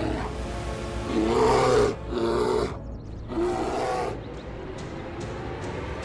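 Cartoon bear roaring three times, each roar a short pitched growl, over background music.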